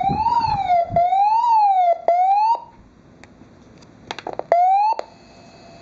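Electronic wailing siren tone sliding up and down about once a second, broken by clicks, that cuts off about two and a half seconds in. After a short hissy pause there are a few clicks and a brief rising sweep, then steady radio hiss and hum.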